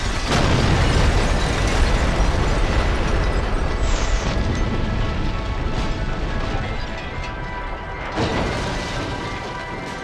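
Acetylene-oxygen gas explosion inside a fridge: a deep boom with a long rumble that slowly fades, and a second, weaker blast about eight seconds in. Background music plays under it.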